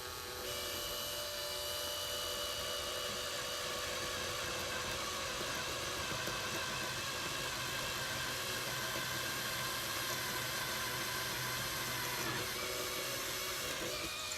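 Electric drill running steadily with a constant whine while boring a hole through a small piece of purpleheart wood; it stops right at the end.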